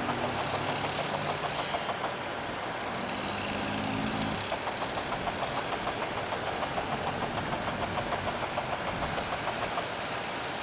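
A vehicle engine running with a steady rhythmic pulsing, about three beats a second, over a constant hiss of traffic and road noise.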